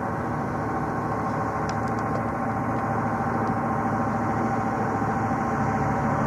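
Lorry engine running steadily as the lorry approaches slowly, growing a little louder near the end.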